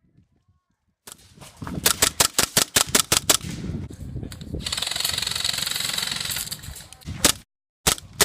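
Airsoft guns firing: after about a second of quiet, a rapid string of sharp shots, several a second. A steadier stretch of noise follows in the middle, then a few more shots near the end.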